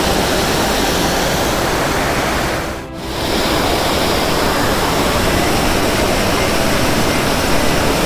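Waterfall cascading down stepped rock slabs: a steady, dense rush of white water that dips briefly about three seconds in.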